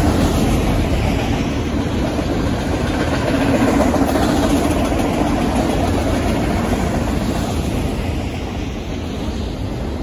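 A freight train of autorack cars rolling past close by: a steady rumble of steel wheels on rail, easing slightly toward the end.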